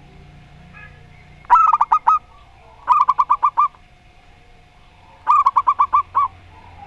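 Zebra doves (perkutut) cooing: three short phrases of quick staccato notes about a second and a half apart, over a faint steady tone.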